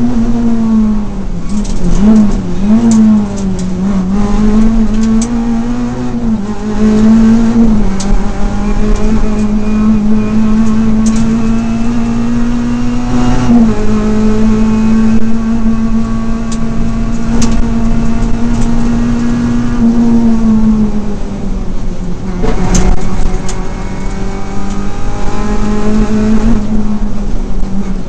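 Renault Clio RS rally car's engine at speed, heard inside the cabin: the note wobbles up and down through quick gear changes early on, holds high and steady, drops sharply twice (about halfway through and again after about twenty seconds) as the driver lifts off, then climbs again. Occasional sharp knocks from the road cut across it.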